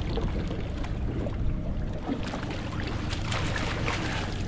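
Water splashing as a small hooked mahi mahi thrashes beside the boat and is scooped into a landing net, stronger near the end, over the steady low hum of the boat's idling outboard.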